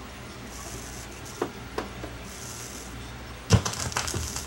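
Two faint clicks of the turntable's tonearm cueing mechanism, then about three and a half seconds in the stylus lands on the vinyl record with a thump through the speakers. The record's surface crackle follows.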